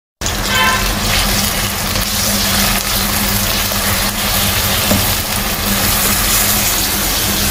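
Sliced onions sizzling in hot oil in a kadai: a steady, loud hiss, with a steady low hum underneath.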